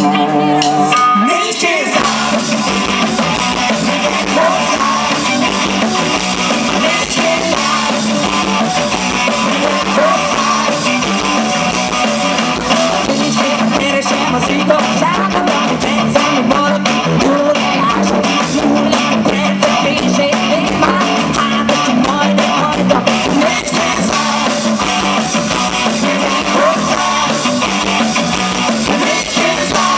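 A rock band playing live, with electric guitar, drums and a woman singing. Held guitar notes open it, and the full band comes in about two seconds in.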